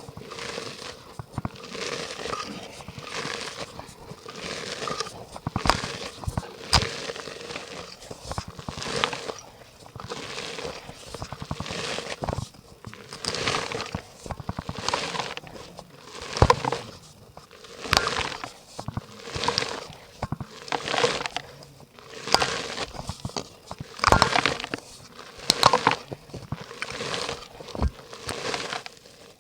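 Dry yellow mud crumbling and crunching as it meets water in a clay pot: a run of crackly crunches, about one or two a second, with sharp little clicks.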